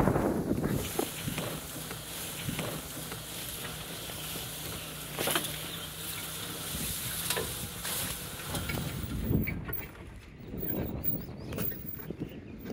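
Safari vehicle running along a forest track: a low, steady engine hum under wind noise on the microphone, with a few knocks and rattles. The sound drops and thins out about nine seconds in.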